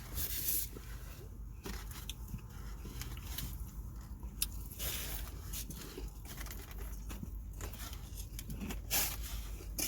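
Faint rustling and scraping handling noises with scattered sharp clicks.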